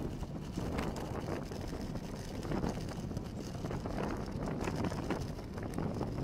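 Wind buffeting a bicycle-mounted camera's microphone while riding, over steady road noise, with a few faint knocks scattered through it.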